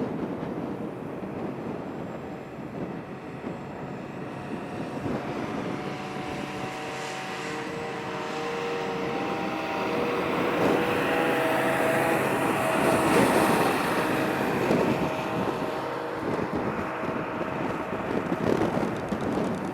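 Jet airliner taking off at full thrust, its engines running with a broad roar and several steady engine tones, growing louder to a peak a little past halfway and then easing off.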